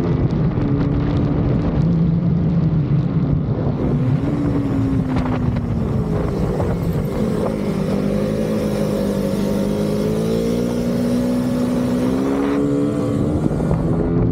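Motorcycle engine running at speed, its pitch falling and rising with the throttle and climbing steadily through the later part as the bike accelerates.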